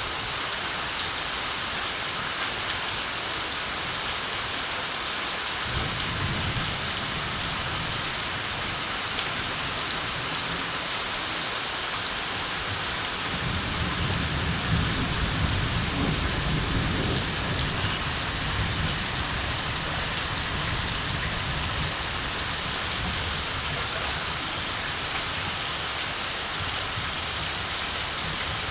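Steady heavy rain falling, with low distant thunder rumbling twice: briefly about six seconds in, and longer from about thirteen seconds in.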